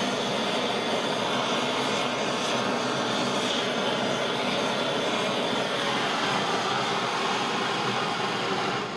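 Gas blowtorch flame running with a steady roar while annealing a copper tube.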